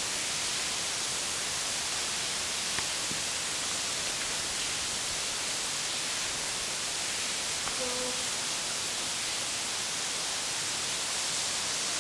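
A steady, even hiss of background noise in a quiet night-time recording, with a faint click about three seconds in.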